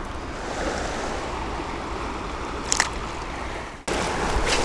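Steady rush of water from a small creek cascade, with a couple of short clicks over it.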